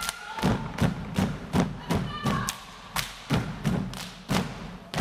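A step team stepping in unison: sharp foot stomps on a wooden stage mixed with hand claps and slaps, in a driving, syncopated rhythm of about three hits a second.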